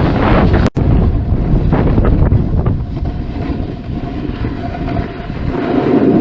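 Heavy wind buffeting on the microphone, a loud low rumble with a momentary dropout under a second in.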